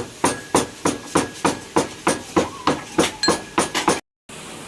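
Rapid, evenly spaced knocks of a hard object struck over and over, about three and a half strikes a second, typical of chopping or pounding during cooking. They stop abruptly about four seconds in, and a faint steady hiss follows.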